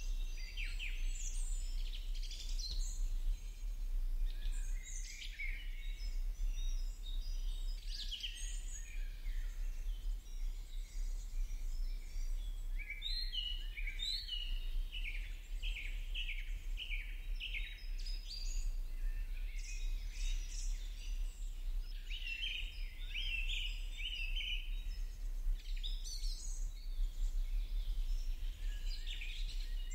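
Many small birds chirping in quick, short, overlapping chirps throughout, over a steady low hum.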